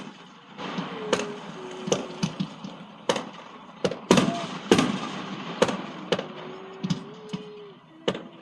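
Fireworks going off, a run of sharp bangs at uneven intervals about half a second to a second apart.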